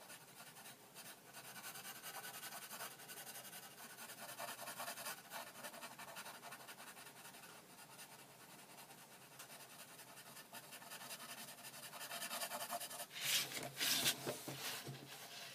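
Graphite pencil shading on paper: a steady, soft scratching of many quick strokes. Near the end, a louder rustle and shuffle as the sheet of paper is moved and turned.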